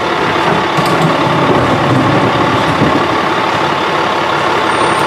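CCC E-Z Pack garbage truck's engine running steadily.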